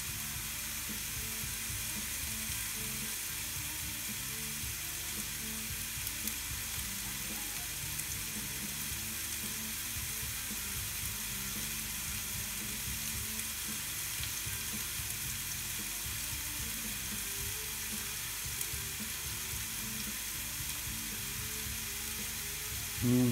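Ribeye steak sizzling steadily between the closed hot plates of a Tefal Optigrill XL contact grill.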